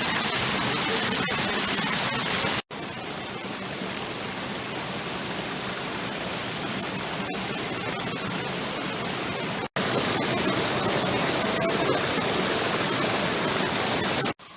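Steady loud rushing of falling water from a waterfall, broken by two sudden cuts where it drops out for an instant and comes back, a little quieter after the first.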